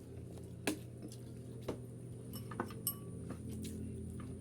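Eating utensils clinking against plates and dishes, four or so sharp clinks over a steady low hum.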